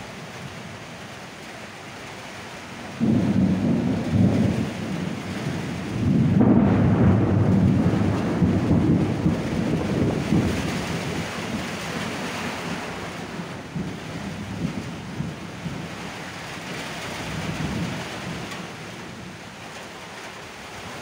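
Steady rain falling on a flat concrete rooftop and the trees around it. A deep rumble of thunder breaks in suddenly about three seconds in, swells again a few seconds later, then slowly fades.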